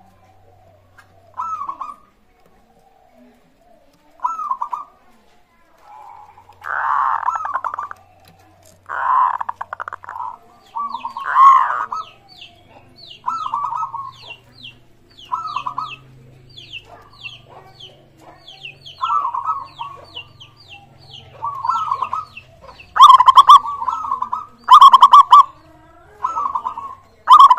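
Zebra doves (perkutut) cooing in short repeated phrases every second or two, the calls getting louder near the end. A faint run of quick high chirps sounds in the middle.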